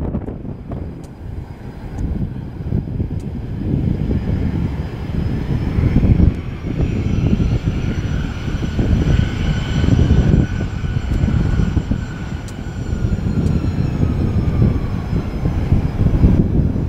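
Turbofan whine from a rear-engined business jet moving along the runway. The steady whine builds about six seconds in, then sags slightly in pitch and fades near the end. A low rumble of wind on the microphone runs underneath.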